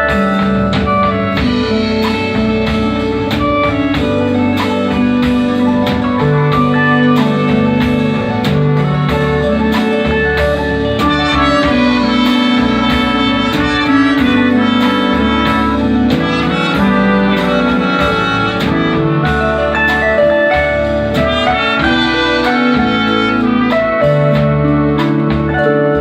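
Band music from a stage show, with held notes over a steady beat.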